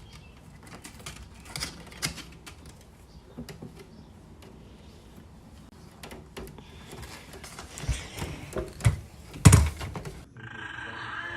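Irregular light clicks and knocks, with a few heavier thumps in the last few seconds, the loudest about nine and a half seconds in.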